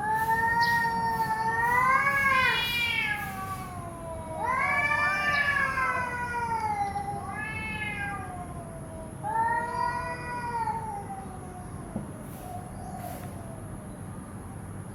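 Cats yowling at a fight standoff: three long, wavering wails that rise and fall in pitch, the middle one with two voices overlapping.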